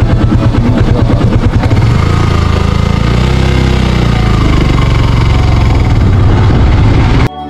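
Motorcycle engine idling with a rapid pulsing beat, then pulling away about two seconds in, its note rising and falling as the rider turns and sets off. The sound drops out briefly near the end.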